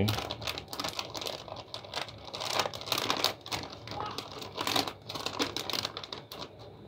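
Plastic packaging crinkling and crackling as it is handled, a quick irregular run of sharp clicks.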